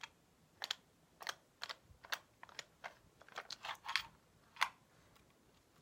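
A series of light, sharp clicks and taps at uneven spacing, about a dozen, some in quick pairs, made close to the microphone as an ASMR trigger.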